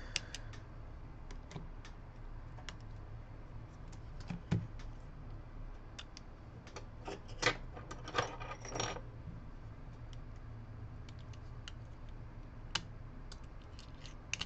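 Scattered small clicks and taps of metal tools and phone parts being handled on a work mat while an iPhone 7 is taken apart, with a short clatter of tools about halfway through. A low steady hum runs underneath.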